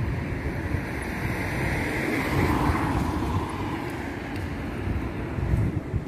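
Wind rumbling on the microphone over steady city-street traffic noise, with a broad swell about two seconds in, such as a vehicle passing.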